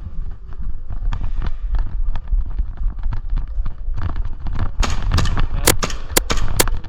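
Airsoft gunfire: scattered sharp cracks over a steady low rumble, with a quicker run of shots about five seconds in and three sharp cracks close together near the end.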